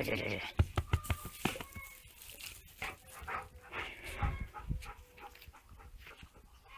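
Shepherd dog moving about in loose straw as it is petted, with irregular rustling and scuffing of straw and fur and small sounds from the dog.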